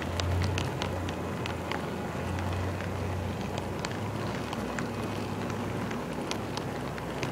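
Metal wheels of an HO-scale model railroad car rolling along the track, with irregular sharp clicks as they cross rail joints and turnouts, over a low steady hum that weakens about halfway through.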